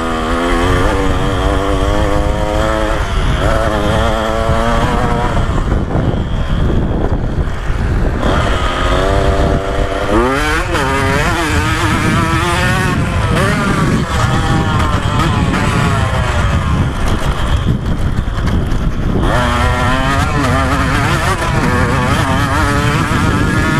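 KTM 125SX's two-stroke single-cylinder engine, heard on board, revving hard and climbing in pitch again and again, dropping back as it shifts gear or rolls off, over a steady rumble.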